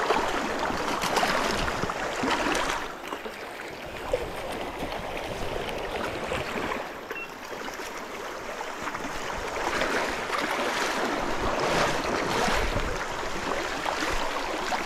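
River water rushing over stones, with uneven splashing close by that swells and falls.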